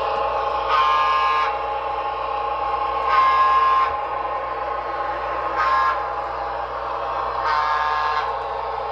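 Sound decoder of an HO-scale Broadway Limited GG1 electric locomotive model sounding its horn through the model's small speaker over a steady running hum. The horn gives two long blasts, a short one and a long one, the long-long-short-long grade-crossing signal.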